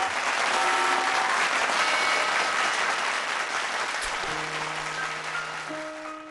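Studio audience applauding over background music; the applause thins out from about four seconds in as low held music notes come in.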